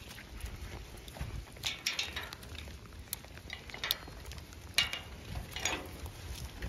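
Metal field gate rattling and clinking as its latch is handled, a handful of separate sharp metallic clicks about a second apart.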